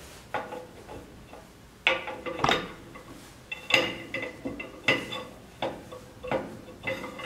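Metal parts of a rotary evaporator stand clinking and knocking as a clamp piece is fitted onto the steel standing rod. There are several sharp knocks at irregular intervals, a few of them leaving a short metallic ring.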